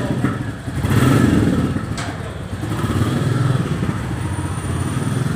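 Royal Enfield motorcycle engine running with a low, pulsing idle, revved up briefly about a second in as the bike moves off. A single sharp click about two seconds in.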